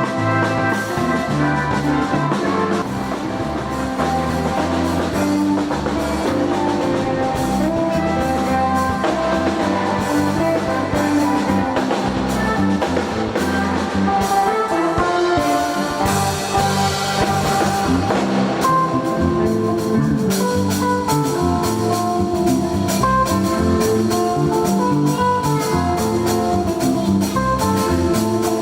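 Instrumental gospel music played by a band, with guitar and drum kit keeping a steady beat.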